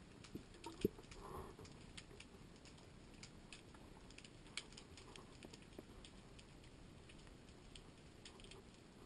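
Quiet underwater ambience picked up through a camera housing: faint, irregular clicks and crackles, with one short low thud about a second in.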